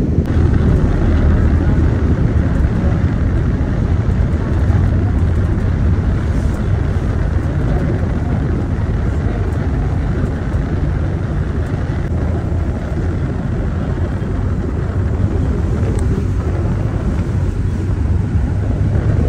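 Steady road noise of a moving car heard from inside the cabin: engine and tyres rolling on wet pavement.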